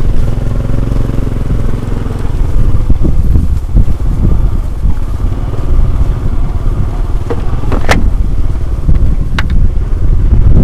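A motor vehicle engine, like a motorcycle's, running under heavy low wind rumble on the microphone. Two sharp clicks near the end.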